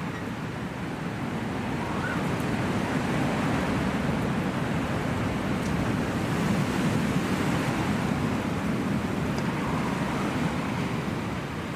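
A steady rushing ambient noise, heavy in the low end and swelling slightly midway, forming the atmospheric intro of a dungeon synth track.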